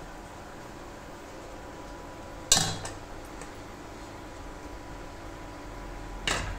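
Stainless-steel kitchen utensils clinking against steel vessels: one sharp, loud clink with a short ring about two and a half seconds in and a softer one near the end, over a steady low hum.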